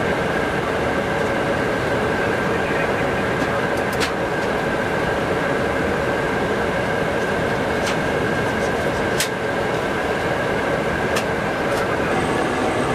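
Steady interior noise of a McDonnell Douglas MD-11 airliner in cruise: a constant rush of engine and airflow noise with a faint steady hum. A few faint clicks are heard over it.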